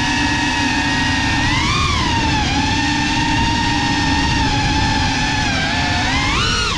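Small FPV cinewhoop drone's brushless motors and ducted propellers whining steadily, rising in pitch briefly about two seconds in and again near the end, over a low rumble.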